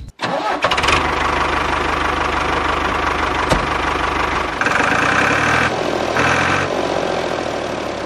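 An engine starting, catching within about a second and then running steadily; a higher, brighter tone comes in twice in the second half.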